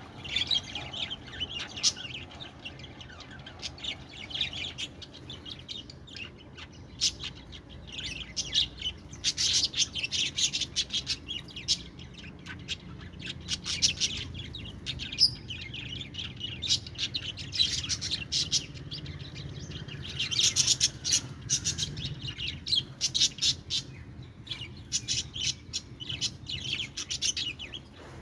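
A group of pet budgies chirping and warbling, a dense stream of rapid high chirps coming in clusters, over a faint low steady hum.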